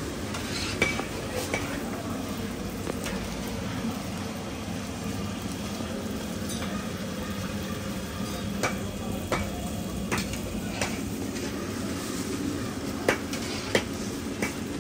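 Kachoris deep-frying in a large iron wok of hot oil, a steady sizzle, with scattered sharp clinks of a metal slotted spoon against the pan as they are stirred.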